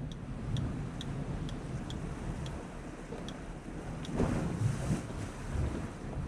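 Wind buffeting the microphone over a steady wash of sea, with a stronger gust about four seconds in. Light, evenly spaced ticks, about two a second, run through the first half and then stop.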